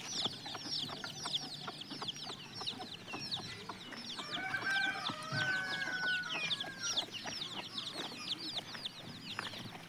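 Domestic chickens: a rapid, steady string of high, falling peeps from chicks, with a few longer, lower calls between about four and seven seconds in.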